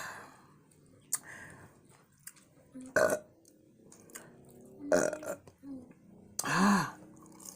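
A person burping loudly a few times. The last and longest burp, near the end, rises and then falls in pitch.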